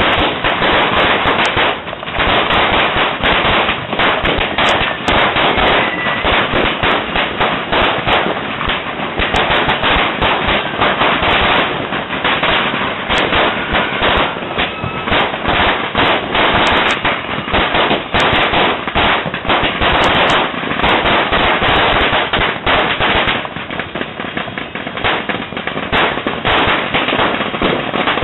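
Many firecrackers and fireworks going off at once: a loud, dense crackle of rapid pops running together without a break, easing slightly for a few seconds near the end.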